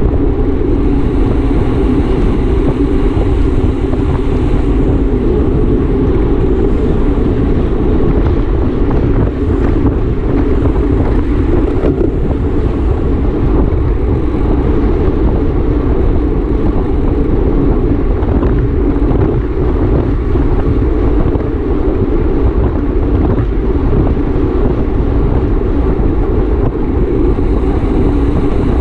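Steady, loud wind rush over the microphone of a camera riding on a racing bicycle at speed.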